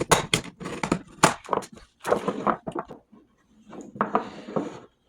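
Quick clicks and knocks of skateboard wheels and steel bearings being handled and pushed onto a bearing press, with a rustle of handling around two and four seconds in.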